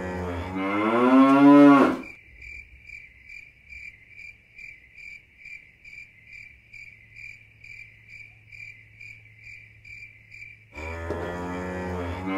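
A long, low call like a cow's moo, rising in pitch, then a steady chirping at about three chirps a second over a faint hum, and a second low rising moo-like call about eleven seconds in.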